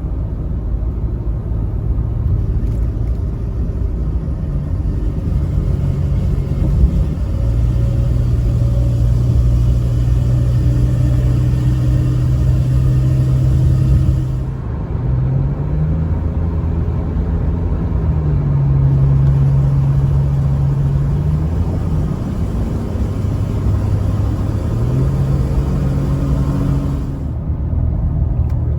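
Ford F-150 pickup accelerating with an unexplained drone that comes in under throttle, swells, then holds at a steady pitch and volume while the gas pedal stays pressed. It happens three times, each time with a short rise in pitch before it levels off.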